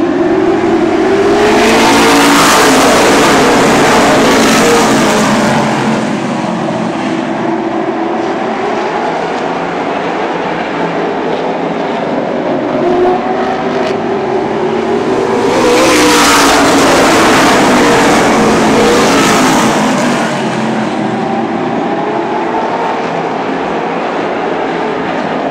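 A pack of super late model stock cars racing on a short oval, their V8 engines at full throttle. The sound swells loud twice as the field passes, about fourteen seconds apart, and drops back in between.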